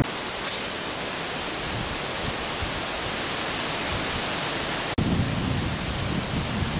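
A steady, even hiss that cuts off abruptly about five seconds in, followed by gusty wind buffeting the microphone.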